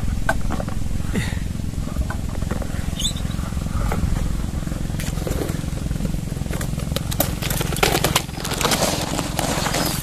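Twigs scraping and clicking against a camera on a tripod pole as it is pushed up through the branches to a nest, the scratching thickest in the last few seconds. A steady low rumble runs underneath, and a brief rising whistle comes about three seconds in.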